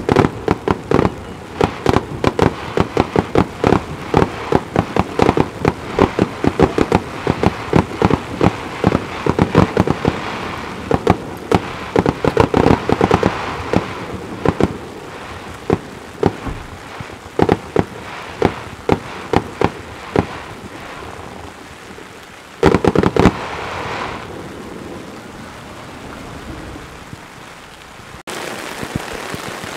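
Starmine fireworks: a rapid barrage of aerial shells bursting, many bangs a second, thinning after about twenty seconds, then one last loud burst. Heavy rain hisses steadily beneath the explosions.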